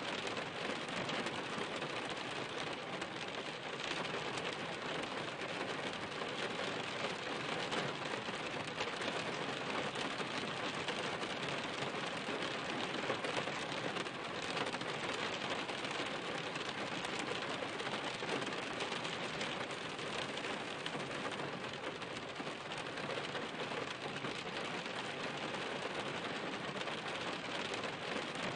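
Steady rain: an even hiss of many drops falling, with no let-up and no thunder.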